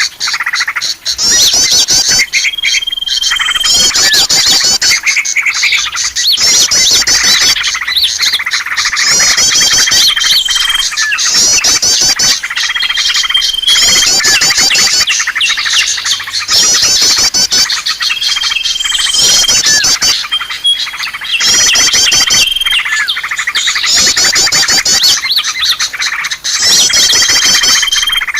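A loud, dense chorus of small songbirds chirping and twittering rapidly, with a short steady high whistle note recurring every few seconds: a bird-lure recording meant to draw wild birds.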